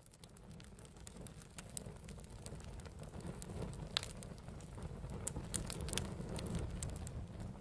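Campfire crackling, with irregular sharp pops over a steady low rumble. The sound fades in over the first couple of seconds, and the loudest pop comes about four seconds in.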